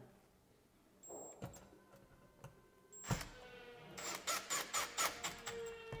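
Cordless drill/driver running in short spins to twist the ground wires together. A brief faint spin comes about a second in, then a longer run from about three seconds with a quick series of clicks, settling into a steady whine near the end.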